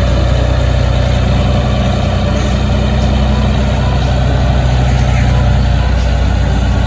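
Komatsu HD465-3 mining dump truck's diesel engine running steadily under load while its hydraulic hoist raises the dump body.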